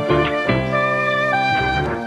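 Background music: sustained instrumental notes that change every half second or so.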